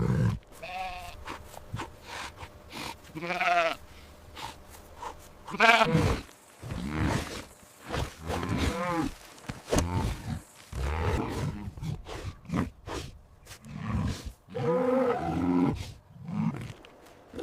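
Sheep bleating, several separate wavering calls, with low grunting sounds between them.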